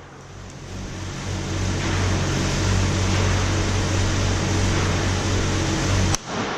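A steady low hum with a rushing noise, then a single sharp gunshot near the end, after which the sound briefly drops away.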